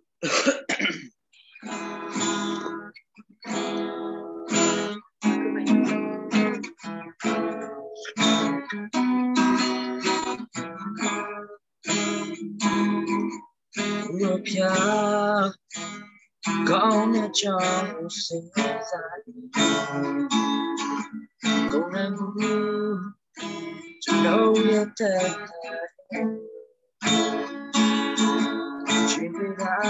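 A man singing solo to a strummed acoustic guitar, heard over a video call, with the sound cutting out briefly between many phrases.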